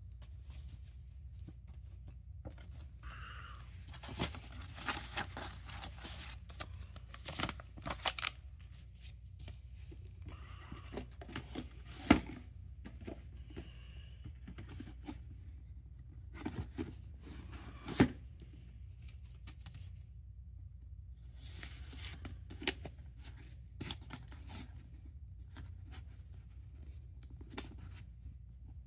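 Paper card and cardboard slipcase being handled: rustling and scraping, with several sharp knocks as plastic VHS cassette cases are slid into the box-set sleeve and knock against it.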